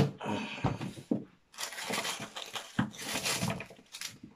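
Cardboard packaging being handled as a small advent-calendar drawer is slid open and its contents taken out: a sharp knock at the start, then stretches of scraping and rustling.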